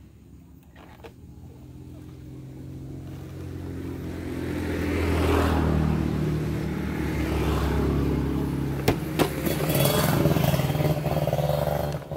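Motor vehicles passing on the road close by: engine noise builds over a few seconds and stays loud, with two sharp clicks about nine seconds in.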